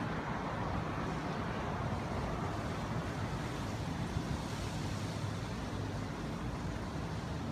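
Steady outdoor background noise, an even low rumble and hiss with no thunder.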